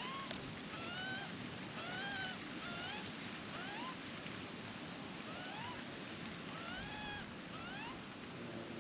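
Young Australian magpie calling insistently: a run of short, rising squawks, about two a second, with a brief pause near the middle, over steady wind noise.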